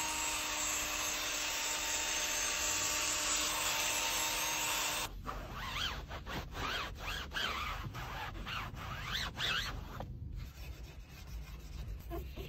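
A handheld cleaning tool hisses steadily with a faint hum, then cuts off abruptly about five seconds in. After that, a microfiber towel is rubbed back and forth over a plastic car door sill in quick scrubbing strokes, which grow fainter toward the end.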